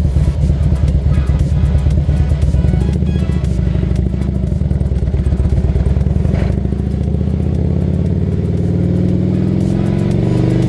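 Motorcycle engine running steadily under way, its note climbing over the last few seconds as it accelerates.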